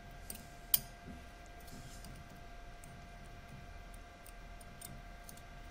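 A few small metallic clicks as a steel ball bearing held in forceps snaps against a stepper motor's magnetic rotor, with one sharp click about three-quarters of a second in. A faint steady hum runs underneath.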